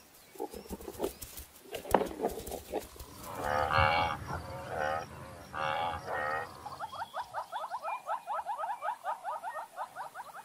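Cape buffalo cropping grass with crisp tearing clicks, then lowing in three drawn-out calls. After that, an animal's rapid repeated chirping call, about five short rising chirps a second, which stops at the end.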